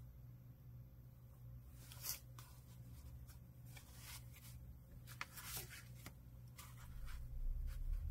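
Paper and card being handled: faint rustles and light ticks, the clearest about two seconds in and again around five to six seconds, over a steady low hum. A low rumble builds near the end.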